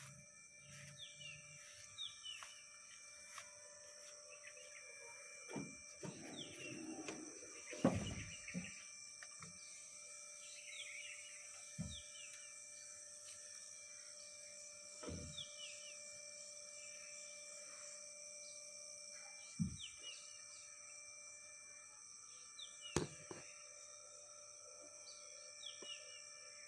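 Rural ambience: a bird repeating short falling chirps every second or two over a steady high insect drone, broken by a few sharp thumps.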